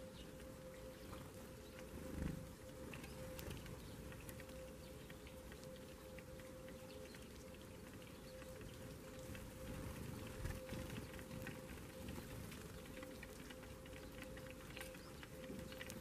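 Eurasian tree sparrows pecking seed off an ice-covered feeding tray: a quick, irregular patter of light taps. A dull thump comes about two seconds in and another about ten seconds in, over a faint steady hum.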